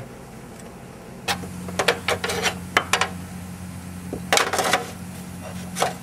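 Scattered sharp clicks and light metallic knocks of handling, a handful of them in two groups with a last one near the end, over a steady low hum that starts about a second in.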